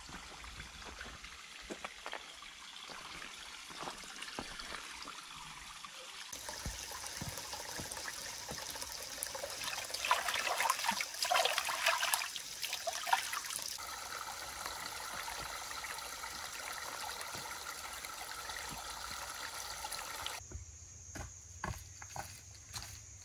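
Shallow creek water trickling over rock, with hands splashing and scooping in it for a few seconds near the middle. Near the end, a few footsteps on a dirt trail.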